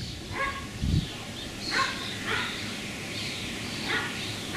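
A dog barking: several short, separate barks spaced irregularly about half a second to a second apart.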